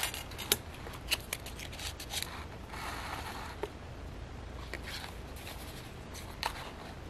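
Stiff paper pages of a thick handmade junk journal rustling and crackling as they are handled and turned. There are several sharp little clicks and taps and a longer soft rustle about three seconds in.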